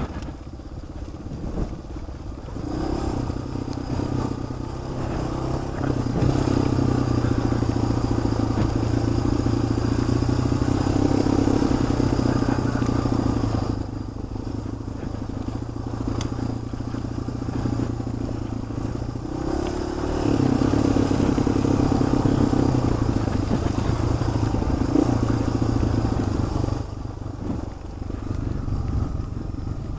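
Motorcycle engine running while riding, with wind and road noise. The engine note steadies and then steps up and down in stretches of several seconds as the throttle changes.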